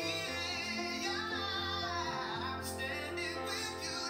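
A man singing a held, wavering melody with electric guitar accompaniment, heard through a television's speakers.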